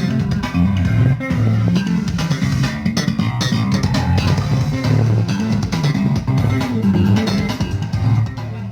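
Bass-heavy music with a prominent bass line and guitar, played loud through a parade sound system under test; it begins to fade out at the very end.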